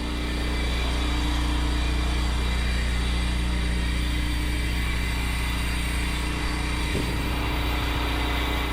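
Pressure washing rig's engine running steadily at a constant speed, an even low hum.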